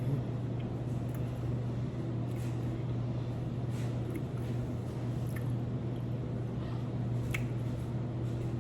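Close-miked chewing of food, with soft wet mouth sounds and small clicks, over a steady low hum.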